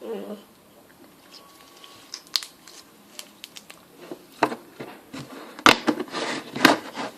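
Slime being handled and squeezed by hand: scattered sticky clicks and pops at first, then a denser run of wet pops and short crackling bursts in the second half.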